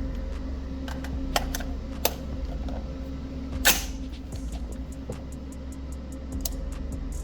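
A steady low mechanical hum with four sharp clicks or knocks over it. The loudest knock comes a little past halfway and rings briefly.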